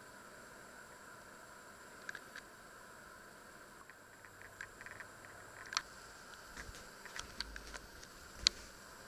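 Quiet room tone with scattered small clicks and taps of handling on a kitchen counter, coming more often in the second half, the sharpest about eight and a half seconds in.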